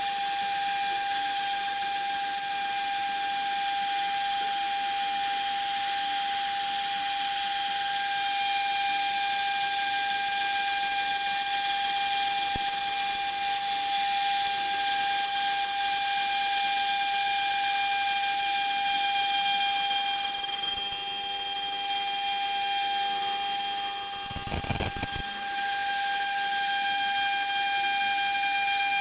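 CNC router spindle cutting polystyrene foam, running with a steady high-pitched whine over a constant hiss. A brief low rumble sounds about four seconds before the end.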